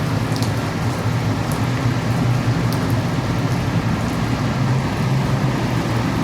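Steady rain with a continuous deep rumble underneath and a few scattered sharp drips or ticks.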